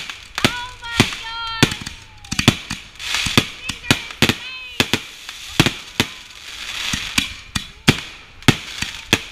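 Consumer aerial fireworks going off in quick succession: about twenty sharp bangs of shells bursting overhead, unevenly spaced, with crackling between them.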